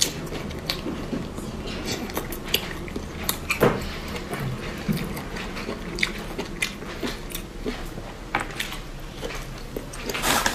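Close-miked chewing and mouth smacking while eating spicy snail meat, with many scattered short, sharp clicks.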